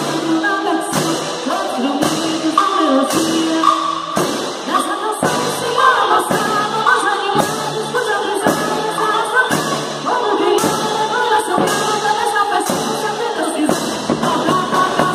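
Music: a quadrilha song, with singing over a steady drum beat.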